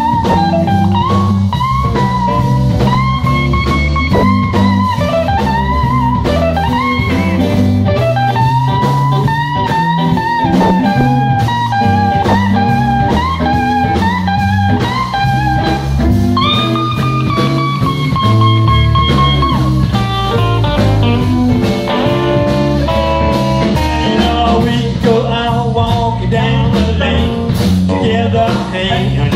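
Live blues band playing an instrumental break: an electric guitar lead with bent, held notes over bass guitar and drum kit, the notes turning quicker and shorter about two-thirds of the way through.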